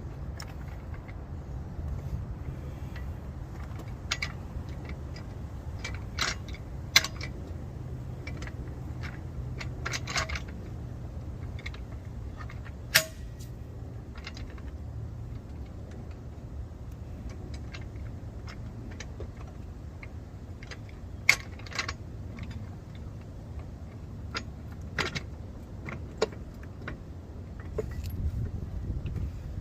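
Scattered sharp metallic clicks and clinks of tools being handled, over a steady low rumble.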